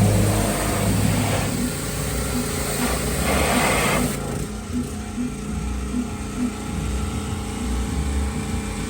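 Engine-driven pressure washer running steadily, with the rush of its water spray coming and going in bursts as the car is washed down.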